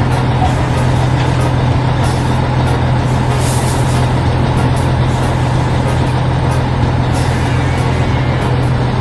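Heavy diesel farm machinery engine running steadily, a low even drone, with two short hisses like an air release, one a third of the way in and one near the end. Background music plays underneath.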